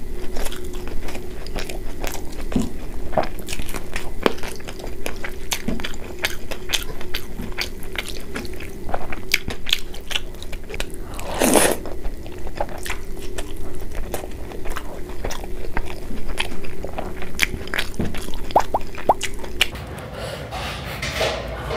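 Close-miked eating: a person crunching and chewing fried food, bites and chews crackling quickly one after another, with one louder, longer crunch about halfway through. The eating sounds die down near the end.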